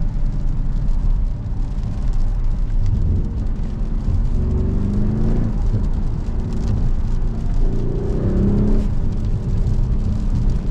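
Mercedes-AMG GLC 63 S's twin-turbo 4.0-litre V8 heard from inside the cabin on the move, a steady low rumble with the engine note rising twice as it pulls, over road noise.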